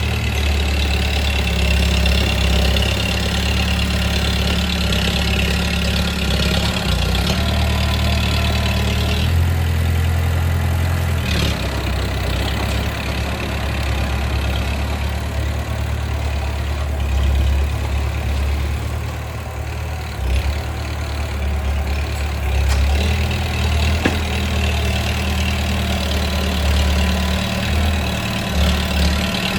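Bulldozer's diesel engine running steadily, its pitch stepping up and down several times as the load changes.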